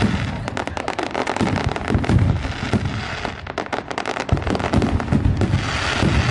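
Fireworks going off in rapid succession: a dense string of bangs and crackles with deeper booms underneath.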